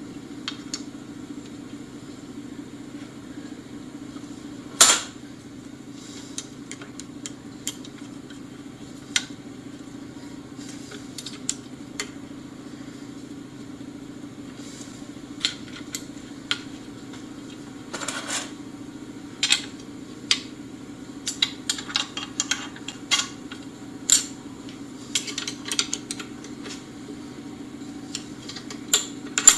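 Scattered metallic clinks and taps as screws are loosened and retightened with hand tools and steel gauge blocks are pushed against a sander's disc pad, over a steady low hum. One sharp clink comes about five seconds in, and the clinks come thicker through the second half.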